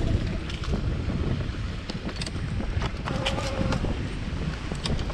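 Wind buffeting the microphone while a Samebike LO26 electric folding bike is ridden over a dirt singletrack, with steady tyre rumble and frequent short clicks and rattles from the bike over the rough ground.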